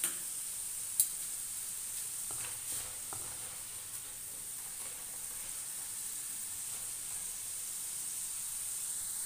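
Potato French fries deep-frying in hot oil at the end of their fry, a steady sizzle. Two sharp ticks sound within the first second, and a few fainter ones come a couple of seconds later.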